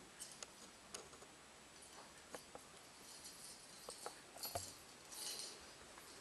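Faint, scattered clicks and taps of a hard plastic lattice toy being mouthed and carried in a rainbow lorikeet's beak, with one louder knock about four and a half seconds in.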